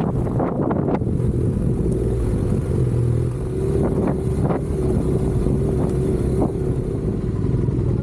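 Adventure motorcycle engine running at a steady pitch while riding, with rumbling wind and road noise. Several short knocks come in the first second and a few more around the middle.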